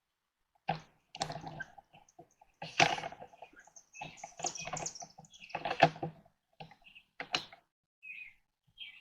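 Irregular clicking and rattling as the telescoping legs of a camera tripod are collapsed and handled, with sharp plastic-and-metal clicks scattered through.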